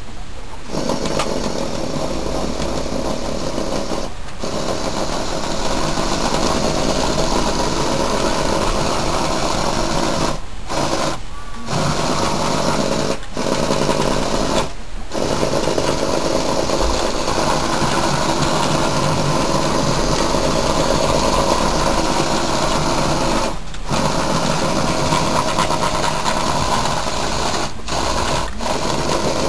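Electric motors and plastic gearing of a LEGO Technic remote-controlled walker running with a continuous mechanical whir and rattle, cutting out briefly about eight times as it is driven.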